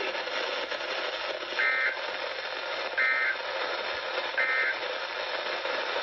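NOAA Weather Radio alert broadcast through the radios' speakers: steady static, with three short bursts of digital SAME data tones about a second and a half apart, the end-of-message code that closes an emergency alert. The static comes from a faulty transmitter.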